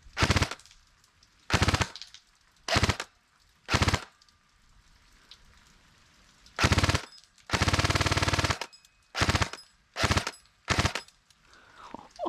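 K2A airsoft rifle firing short full-auto bursts, about nine in all, each a quick rattle of shots, with one longer burst of about a second a little past the middle.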